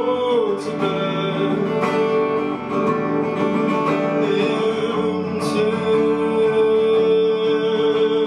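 Band music: guitar accompaniment under a voice singing long, held notes, one bending up into pitch at the start and another held steady near the end.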